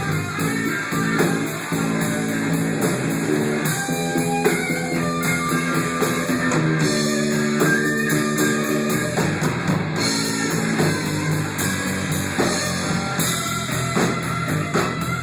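Live band playing an instrumental stretch of a song, with a steady beat and no singing.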